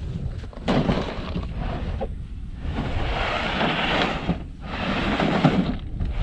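Wind rumbling on the microphone, with a knock about a second in and rough scraping and handling noise as a plastic cooler of iced fish is lifted and loaded into a pickup truck bed.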